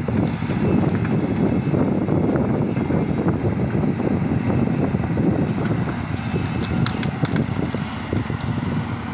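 Heavy diesel excavator engine running steadily under working load, with a few light knocks about seven seconds in.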